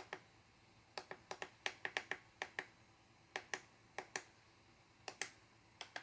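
Push buttons on a FrSky Taranis X9D radio transmitter clicking faintly, about twenty short clicks, many in quick pairs, as the keys step through a menu setting.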